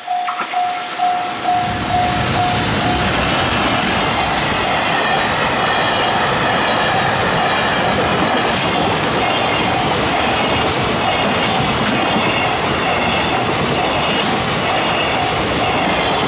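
Japanese electronic level-crossing bell ringing steadily, about two and a half strokes a second. From about two seconds in, a train runs over the crossing with steady wheel-on-rail noise and clickety-clack that drown the bell, which keeps ringing faintly underneath.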